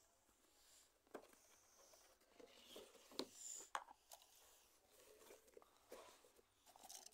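Faint handling noise: a plastic toy remote-control car and its cardboard box with a plastic window being picked up and moved, a few short clicks and taps over near silence.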